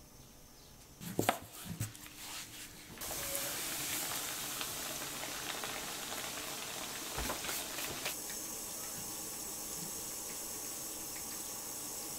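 A round of flat-cake dough frying in hot oil in a frying pan: a steady sizzle that starts about three seconds in. A few sharp knocks come just before it.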